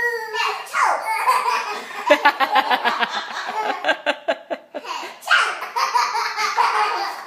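A young child laughing hard, in runs of rapid bursts of laughter broken by short pauses for breath.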